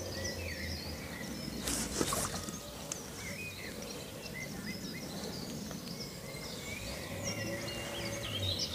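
Small birds chirping and twittering over steady outdoor background noise, with one short burst of noise about two seconds in.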